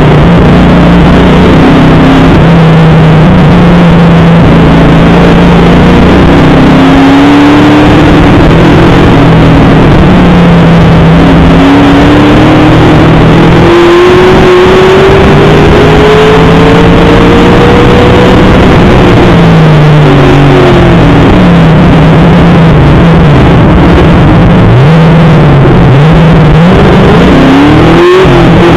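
Race car engine heard from inside the cockpit under race conditions, its pitch repeatedly climbing and dropping with throttle and gear changes, over heavy road and wind noise. Loud enough to overload the microphone.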